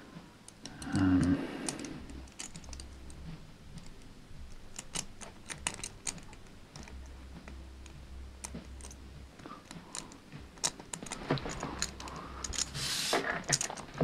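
Cast metal pieces of a Hanayama Cast Padlock puzzle clicking and rubbing against each other as fingers turn and slide them: a string of small, irregular clicks, with a short rush of scraping near the end.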